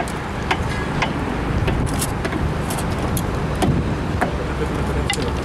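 Irregular sharp metallic knocks and clicks, several a second, from a hammer working the hot riser and slag of a freshly poured thermite rail weld. Under them runs a steady low rumble like a running engine.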